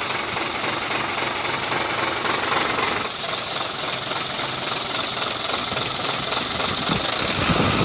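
Mitsubishi Fuso 220 PS truck diesel engine idling steadily, heard up close at the injection pump, with its ordinary diesel clatter. The metallic tek-tek knock from the injection pump timer is gone now that the timer is repaired, and the engine runs smooth.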